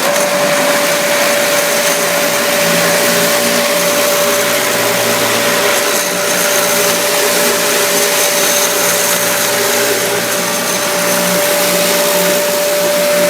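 Cherry Hill electric random orbital floor sander running, its four 6-inch pads with 40-grit paper sanding painted oak plywood. It gives a loud, steady whir and hiss with a constant hum on top.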